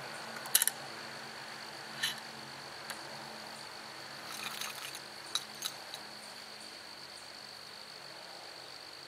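Insects trilling in one steady, high, even tone, with a few short sharp clicks, the loudest just over half a second in.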